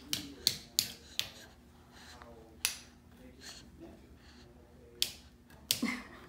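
A plastic toy knife tapping and clicking against plastic play food: a string of sharp clicks, several close together in the first second, one more a little later, and a few more near the end.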